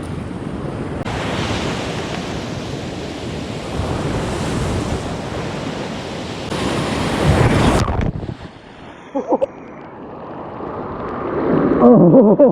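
Ocean surf breaking on a beach, with wind buffeting the microphone. The heavy noise stops suddenly about eight seconds in, leaving softer surf, and a voice starts near the end.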